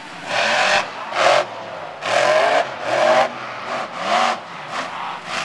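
Monster truck engine revving in about six short, sharp bursts, the pitch rising and falling with each blip of the throttle.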